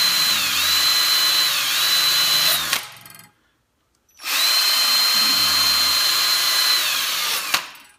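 Power drill spinning an abrasive flap sanding wheel against a stainless steel pinball ball guide to regrain it: a steady high whine whose pitch dips twice as the wheel is pressed into the metal. It stops about three seconds in, is silent for about a second, runs again for about three seconds, and stops near the end with a click.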